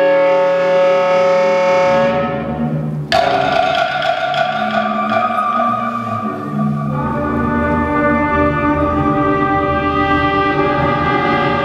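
A concert band of woodwinds and brass playing sustained chords. About three seconds in, the full band comes in with a sudden loud accented chord, and from about seven seconds lower notes fill in underneath.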